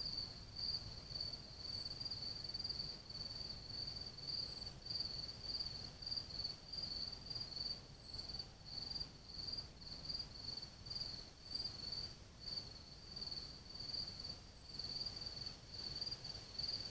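A cricket singing steadily, a high-pitched chirp repeated evenly over and over without a break.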